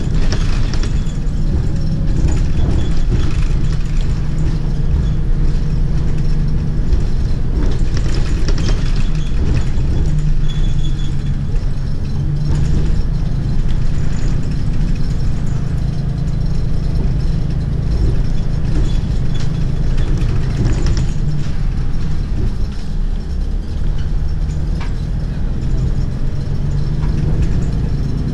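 Inside a Mercedes-Benz city bus under way: the engine's steady low drone, rising and falling a little with speed, with occasional rattles and knocks from the cabin fittings.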